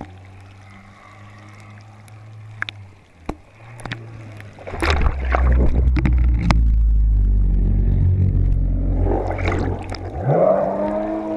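A jet ski engine hums, muffled, heard from a GoPro floating in the water after its mount snapped, with a few sharp knocks against the housing. About halfway through, a loud low rush of water sloshing over the camera takes over. Near the end the engine pitch rises and falls as a jet ski passes close by.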